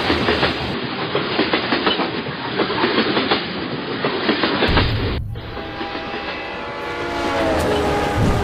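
A train running on rails, with a dense steady rattling clatter of the carriages. About five seconds in the sound cuts abruptly, and a held, several-toned train horn sounds near the end.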